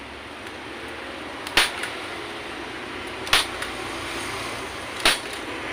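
Hand staple gun firing three times at an even pace, a sharp snap about every second and three quarters, driving staples through a motorcycle seat cover into the plastic seat base.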